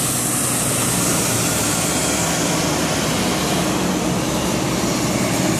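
Diesel tractor-trailer hauling a shipping container passing close, its engine running steadily under a continuous hiss of traffic noise.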